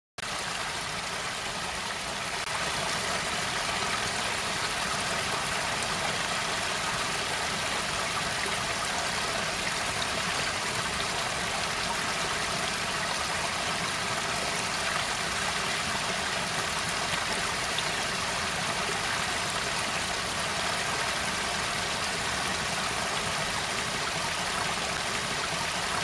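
Steady rush of water from a small waterfall cascading over rock into a pool.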